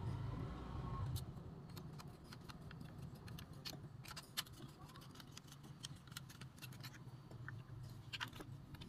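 Irregular light clicks and taps of a small screwdriver and handled parts against the plastic gearbox housing of a toy RC bulldozer being taken apart.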